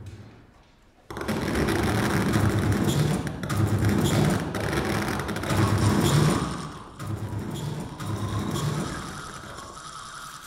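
Electronic sound in a contemporary performance: a dense, rapid clatter of clicks that cuts in abruptly about a second in and swells and ebbs in several waves. Near the end it thins to a quieter texture with a steady higher tone.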